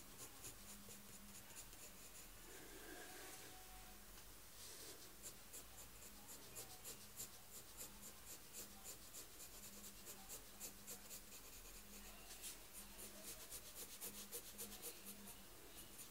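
Faint scratching of a colored pencil shading lightly on paper, in quick back-and-forth strokes, with a short pause about three seconds in.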